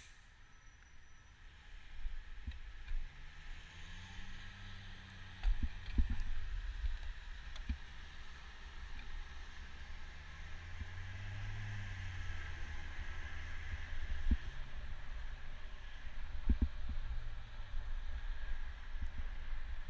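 Riding noise on a bicycle: wind buffeting the microphone and road rumble with scattered bumps. A low engine hum rises and falls twice, like motor traffic passing.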